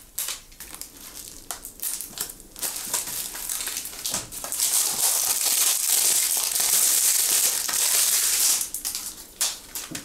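Packaging being handled and crumpled by hand: scattered crackles at first, then a few seconds of loud, continuous crinkling that tapers off into a few last crackles near the end.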